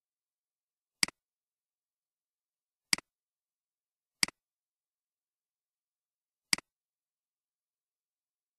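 Computer mouse clicks, four in all at uneven intervals, each a sharp click followed at once by a softer one, with dead silence between.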